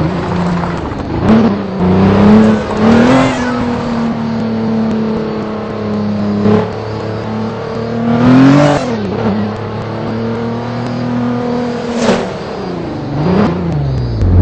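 Motor vehicle engine under way, its pitch climbing and then dropping back sharply about three times, like revving through gear changes, with steady running in between.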